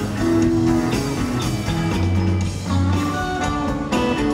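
Live rock band playing: electric guitars over bass and drums, recorded from the audience.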